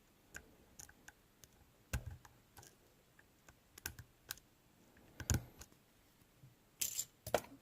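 Irregular small metallic clicks and taps from picking tools and a tension tool working in a Mindy 60 mm padlock. A few louder knocks come about two seconds in, past five seconds, and twice near the end.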